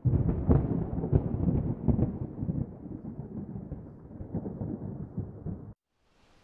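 Thunder rumbling with crackling peaks, loudest in the first two seconds and then easing off, cut off abruptly shortly before the end.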